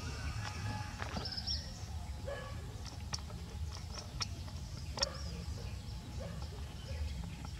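Outdoor ambience: a steady low rumble with a few short high chirps a little over a second in and several sharp clicks later on.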